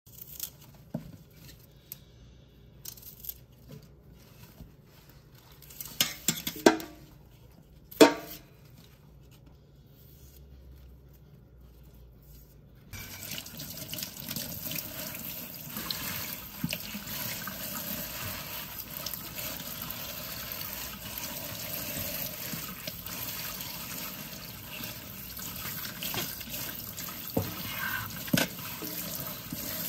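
A few sharp knocks and clicks as green garlic stalks are handled over a stainless steel sink, the loudest about six and eight seconds in. About thirteen seconds in, the tap comes on and water runs steadily into the sink as the stalks are rinsed under it.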